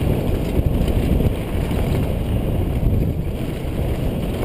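Wind buffeting a helmet-mounted camera microphone, mixed with the rumble of a downhill mountain bike running fast over a dirt trail: a loud, steady low noise full of small jolts.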